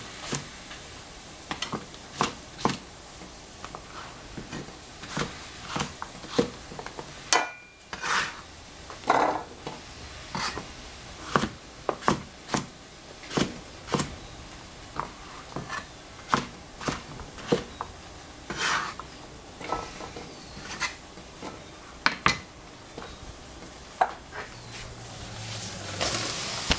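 A chef's knife chopping squash on a plastic cutting board: irregular sharp knocks of the blade meeting the board, about one or two a second. Near the end, the chopped squash is tipped into a hot pot and starts to sizzle.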